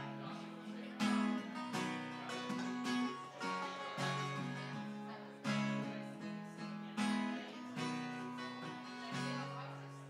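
Cutaway steel-string acoustic guitar strumming slow chords live. A strong strum lands about every one to two seconds, and each is left to ring out and die away.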